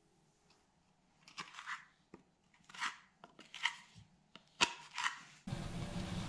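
Putty knife scraping filler along a plaster wall at the baseboard: several short rough strokes with a few small clicks. Near the end a power drill abruptly starts running steadily and is the loudest sound.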